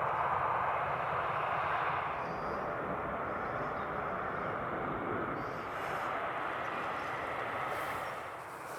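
Jet engine noise of a Cathay Pacific Airbus A350-1000, twin Rolls-Royce Trent XWB engines, climbing away after takeoff: a steady rushing sound that slowly fades, dropping a little more near the end.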